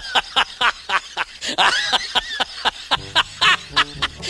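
A small dog yapping rapidly, about four to five short, high yaps a second.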